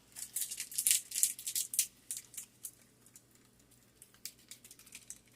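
Irregular light crackling and ticking from a pan of meatballs in tomato sauce as cheese is added: dense for about the first two seconds, then sparser.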